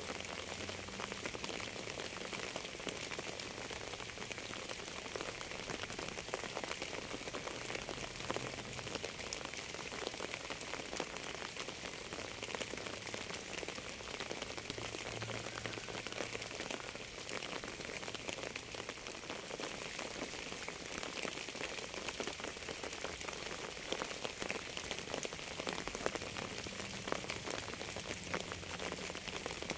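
Steady rain falling, with many separate raindrop hits ticking through the hiss.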